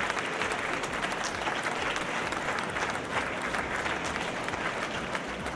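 Spectators applauding, a steady dense clapping that greets the end of the match.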